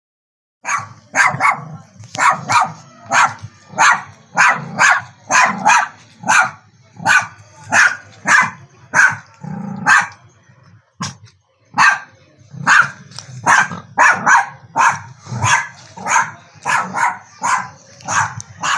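A dog barking repeatedly at visitors, about two sharp barks a second, with a short break about ten seconds in.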